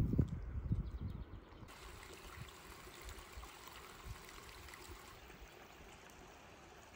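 Low rumbling thumps for about the first second and a half, then a faint, steady rush of flowing water from a small stream.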